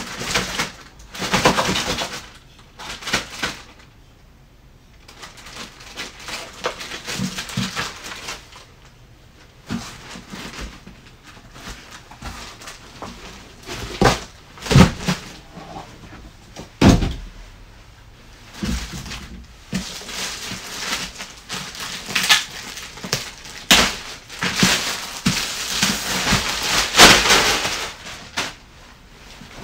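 Box and packaging being handled: irregular rustling and sliding, with scattered knocks and thumps, two sharp thumps about halfway through.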